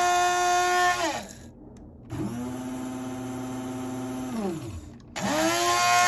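Two electric blade coffee grinders grinding beans in turn. The louder, higher-pitched whine of the Capresso spins down about a second in. The Krups Silent Vortex on its low setting then runs quieter and lower-pitched for about two seconds and spins down, and the Capresso starts up again near the end.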